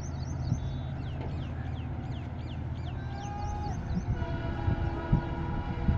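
WDP4B diesel locomotive's EMD two-stroke engine humming steadily. High repeated chirps sound over it throughout, and a few sharp low knocks come near the end.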